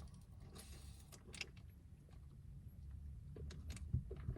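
Quiet handling of a fountain-drink cup and straw, with a few small clicks and a soft knock near the end as the Starry lemon-lime soda is tasted.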